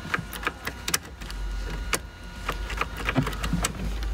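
Scattered sharp clicks and taps from inside the car as the ignition key and switches are worked, over a low steady hum. The starter does not crank, because the engine harness is getting no power.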